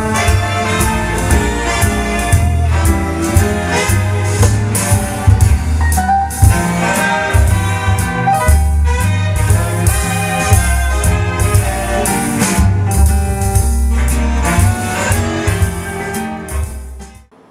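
Music played loudly through a floor-standing hi-fi loudspeaker and picked up by a Boya BY-M1 lavalier microphone, with a strong pulsing bass line; the camcorder compresses the mic's hot signal on the peaks. The music stops abruptly near the end.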